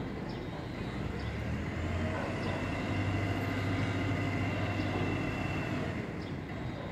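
A motor vehicle's engine running, growing louder about two seconds in and easing off near the end.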